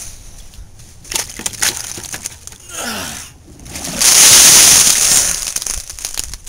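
A large pot of water with oranges and lemons in it tipped over a person: a loud rushing splash about four seconds in, lasting just over a second. Scattered knocks and clatter come before it.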